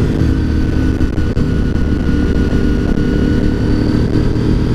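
Honda RC51's 999 cc V-twin engine running steadily at cruising speed, with wind rushing over a helmet-mounted microphone.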